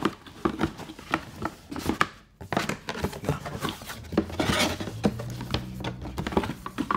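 Cardboard product box being handled and opened: irregular small knocks, clicks and rustles of the lid, flaps and inner packaging, with a short pause a couple of seconds in.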